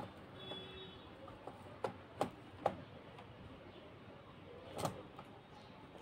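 Faint plastic clicks and light knocks as a replacement laptop keyboard is handled and its front tabs are worked into the slots of the laptop's case: three quick clicks about two seconds in and another near the end.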